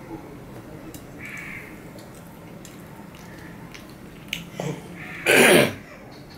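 Fingers mixing rice on a steel plate with light clicks, and a faint crow caw about a second in. About five seconds in comes a short, loud, harsh animal call that falls in pitch.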